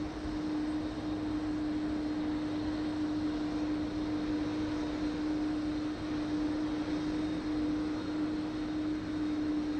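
Jet airliner engines running at a steady pitch: one constant hum over an even rush of noise, with no rise or fall.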